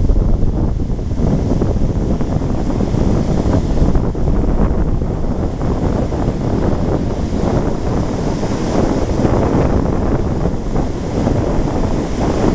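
Wind blowing on the microphone over the steady wash of surf breaking on the beach.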